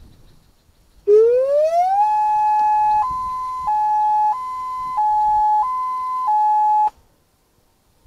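Homemade Bluetooth-speaker siren playing a Federal Signal hi-lo tone. About a second in, a tone slides up to a steady pitch, then two pitches alternate high-low, each held about two-thirds of a second. The tone cuts off suddenly near the end as the Bluetooth connection drops.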